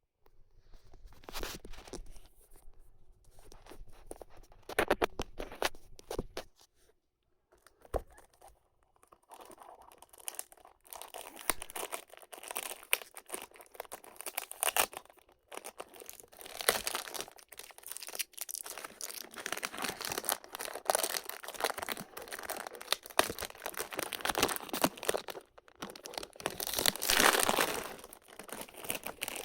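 Hands unboxing a perfume: packaging crinkling and tearing, with irregular crackles and clicks throughout, one sharp knock about eight seconds in, and a louder stretch of crinkling near the end.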